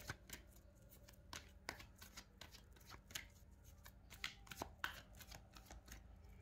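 Faint clicking and riffling of a deck of oracle cards being shuffled by hand: a quick, uneven run of soft card clicks that stops near the end.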